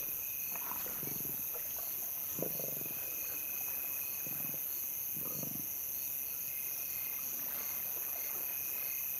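Lions at a kill giving about four short, low growls in the first half, over steady cricket chirring.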